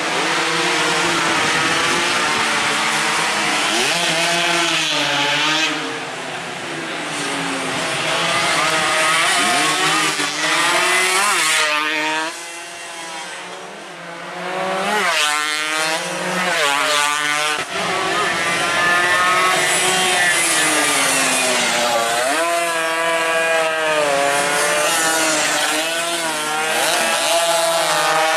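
Several two-stroke 116–125cc underbone racing motorcycles at high revs, their overlapping engine notes rising and falling as they pass and shift gears. The sound fades for a few seconds about halfway through, then swells again as more bikes come by.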